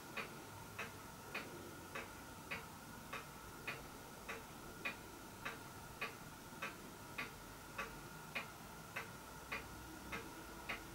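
Faint, steady ticking, a little under two ticks a second, evenly spaced like a clock's.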